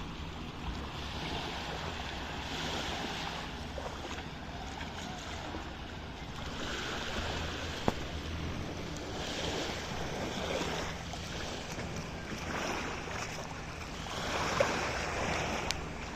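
Sea waves washing in, swelling and falling every few seconds, with some wind on the microphone.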